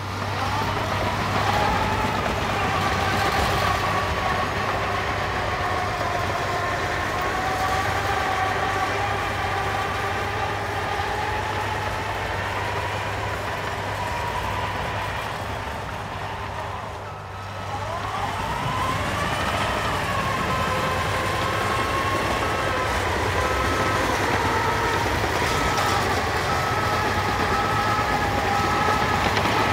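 Cat 953D track loader's diesel engine running as the machine travels, with a whine that rises and falls; about halfway through it dips briefly and then climbs again. Over the last several seconds a backup alarm beeps steadily.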